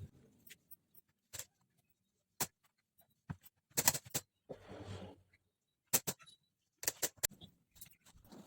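Scattered light clicks and knocks of objects being handled, with a short scraping rustle about five seconds in.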